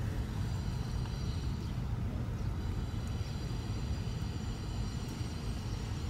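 A steady low mechanical rumble, joined about two and a half seconds in by several thin, steady high-pitched whining tones.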